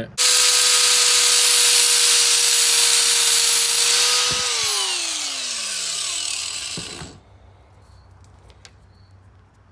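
A power cutting wheel starts suddenly and runs at a steady high whine with a loud hiss while cutting through the outer housing of a throttle cable. About four and a half seconds in it is let off and winds down, the whine falling in pitch until it stops about seven seconds in.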